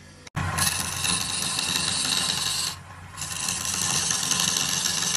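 A hand-held turning tool cutting the end of a spinning wooden blank on a wood lathe: a steady, loud scraping hiss that starts abruptly about half a second in and breaks off briefly in the middle before resuming.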